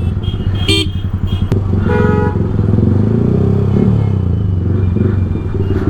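Yamaha R15's single-cylinder engine idling steadily through an Akrapovic full-system exhaust, with a fast even low pulse. A few brief higher-pitched tones sound over it near the start.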